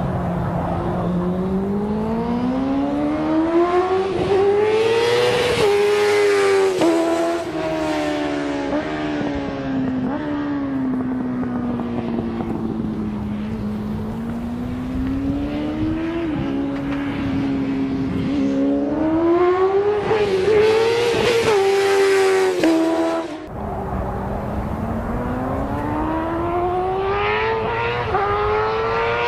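Motorcycle engine being ridden hard on a race track, its pitch climbing under throttle and dropping sharply at gear changes several times. About three-quarters through it falls away with a brief dip in level, then climbs again.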